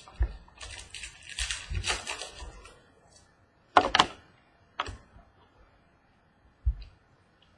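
Trading cards being handled and shuffled by hand: rustling and sliding for the first couple of seconds, then a few sharp clicks and taps and a single low thump as cards are set down.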